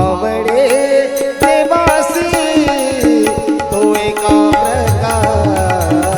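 Marathi devotional bhajan music: a melody of held and gliding notes over tabla-style hand-drum beats and even, sharp percussion strokes, with low drum beats coming back near the end.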